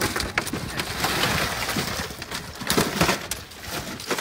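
Ice cubes and fish shifting and clinking in a boat's fish box as hands dig through the catch, with scattered sharp clicks.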